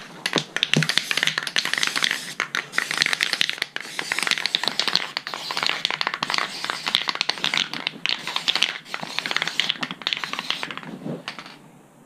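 Camouflage mesh netting and card being handled and rearranged, with continuous crinkling and rustling and many small clicks and taps from the spray cans being picked up and set down; it dies away near the end.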